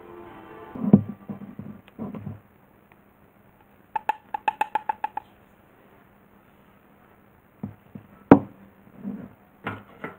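Knocks and taps of a small terracotta pot and a metal soil scoop being handled on a table while potting up in gritty soil: a dull thump about a second in, a quick run of about nine ringing taps around the middle, and a sharp knock later on.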